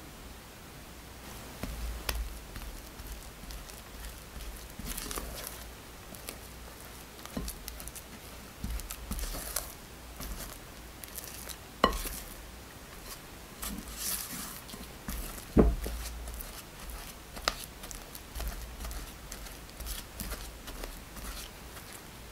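Silicone spatula stirring and folding soft white bean paste dough in a glass bowl: irregular wet squishing and scraping against the glass, with a few sharp knocks.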